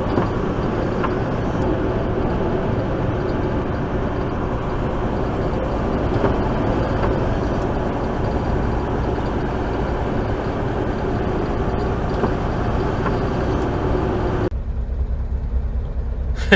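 Cab noise of a 2020 Mack Anthem semi truck at highway speed: steady engine drone and road rumble. It changes abruptly near the end to a quieter low hum.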